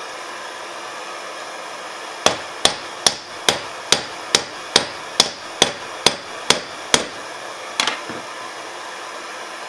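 Hand hammer striking a hot nail on a small cast iron hobby anvil to flatten it: about a dozen sharp metal-on-metal blows at roughly two a second, starting about two seconds in, then one last blow after a short pause.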